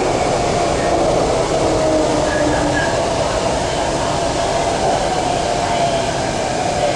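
MTR C-Train metro car running, heard from inside the carriage: a steady rumble of wheels on rail with a faint whine that drifts slightly in pitch.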